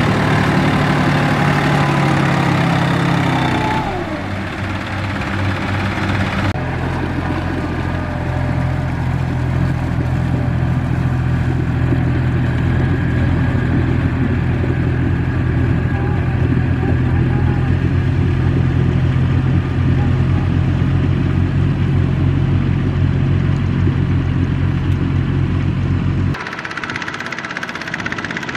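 Farm tractor engines running steadily under load through deep mud. The engine note changes abruptly about four and six seconds in and drops in level near the end.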